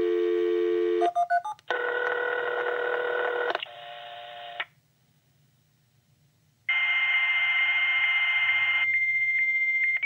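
Hayes Smartmodem's speaker dialing out over a phone line: a steady dial tone, a quick run of touch-tone digits about a second in, then a harsher multi-tone sound for about two seconds. After a short pause, the answering modem's high steady tone with carrier hiss comes in, the handshake of a 300-baud connection being made.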